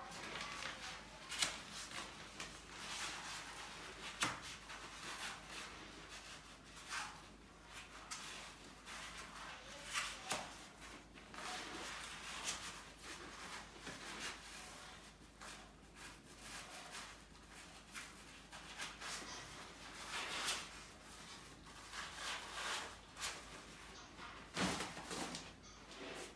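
Rustling of a portacot bassinet's fabric with scattered clicks and knocks from its clips and frame, as the bassinet is hooked onto the cot's top rails.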